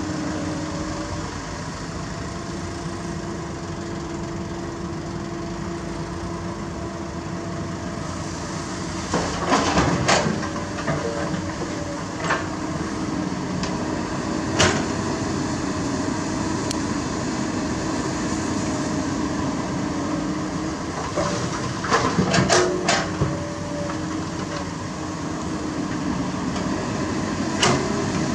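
Komatsu PC200 hydraulic excavator's diesel engine running steadily, with its bucket and rocks clanking and thudding as it digs and loads. The impacts come in clusters about a third of the way in and again past the three-quarter mark, with a few single knocks between.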